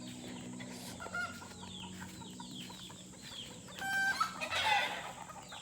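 Native chickens calling, with many short high peeps throughout and a louder, longer chicken call about four seconds in.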